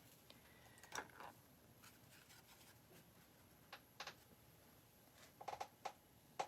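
A paintbrush working on a canvas: a handful of short, faint taps and scratches over a quiet room, with a quick run of them near the end.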